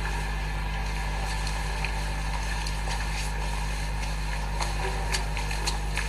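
Steady low hum with a faint hiss, and a few faint ticks near the end.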